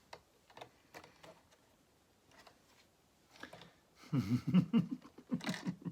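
Small plastic Lego pieces clicking and tapping as a minifigure is worked into a toy train cab, a few light clicks scattered over the first few seconds. About four seconds in, a man's voice starts muttering.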